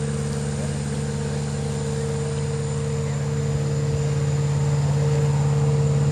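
Kubota diesel engine of a homemade hydraulic-drive amphibious boat buggy running steadily at a constant speed, growing gradually louder.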